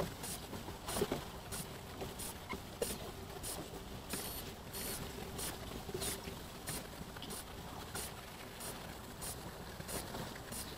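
Small boat riding on choppy river water: short, regular slaps of water against the hull, about one and a half a second, over a low, even rumble.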